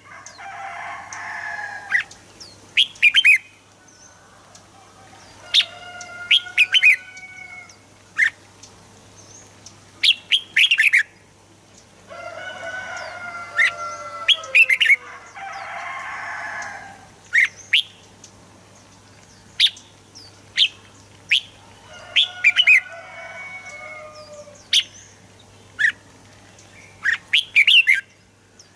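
Red-whiskered bulbuls singing: clusters of short, sharp whistled notes every couple of seconds, with a few longer, lower, rougher calls of a second or two in between. A faint steady hum runs underneath.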